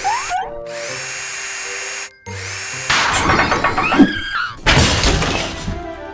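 Cartoon power-tool sound effects, drilling and whirring, over cheerful background music. They are louder and busier in the second half.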